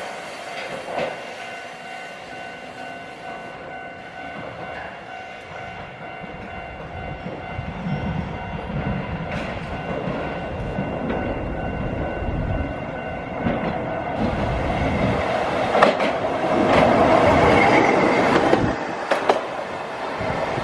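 Hankai Tramway streetcar running along the track toward the listener, growing steadily louder, with a steady high whine over the rumble and a few sharp clicks of the wheels over rail joints near the end.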